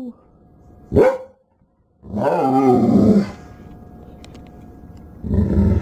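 Pet dog 'talking back' with short vocal calls: a brief rising-and-falling call about a second in, then a longer, rougher, lower call, and a shorter low one near the end.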